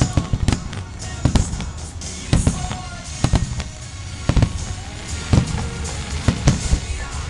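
Aerial firework shells bursting over the sea: a dozen or so sharp booms and cracks at irregular intervals, with music playing over loudspeakers behind them.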